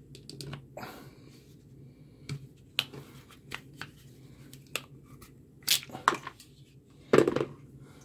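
Ratcheting wire crimper clicking as it is squeezed shut on an insulated spade terminal and released, with scattered snaps and handling noise from the tool and wire; the loudest clicks come in the second half.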